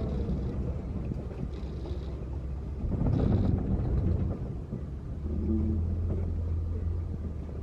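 Off-road safari truck driving along a dirt track: a low engine rumble with wind on the microphone. There is a louder jolt of noise about three seconds in, and a steadier engine hum from about five seconds.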